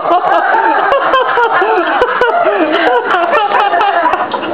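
Several high-pitched voices laughing and calling out over one another, with no clear words.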